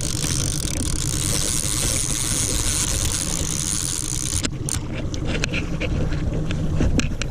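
Small motorboat's engine running steadily, with a hiss over it that drops away about four and a half seconds in, followed by scattered clicks and knocks.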